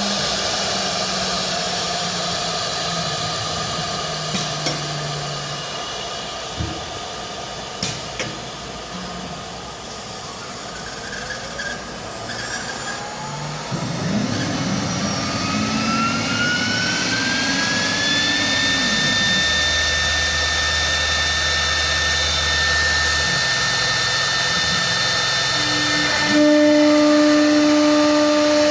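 CNC router running: a steady hissing spindle with stepper motors humming in short steps of changing pitch as the axes move, a few clicks, and a whine that rises about halfway through and then holds steady. Near the end a louder steady tone comes in.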